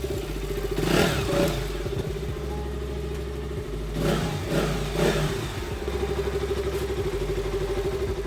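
KTM Duke 200's single-cylinder engine running while the motorcycle is ridden, its note swelling about a second in and again around four and five seconds in.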